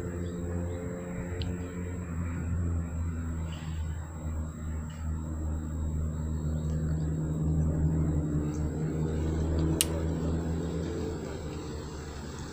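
A vehicle engine running, a low hum whose pitch shifts, growing louder to a peak a little after halfway and then fading. There is a single sharp click near the end.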